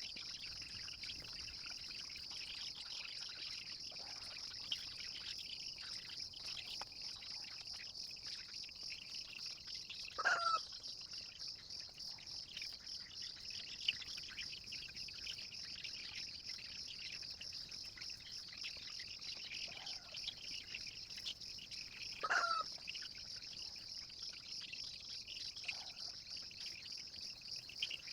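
Steady high insect trilling, typical of crickets. Two short calls that fall in pitch stand out over it, about ten and twenty-two seconds in; they are bird calls, likely from the chickens.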